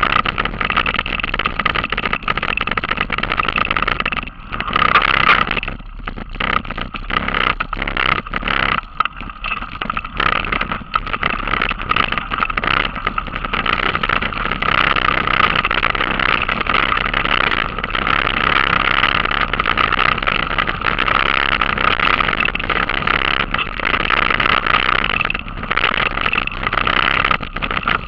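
Mountain bike ridden fast over a leafy forest trail, heard through an action camera riding along: a continuous rush of wind and rolling noise, with frequent rattles and jolts over bumps.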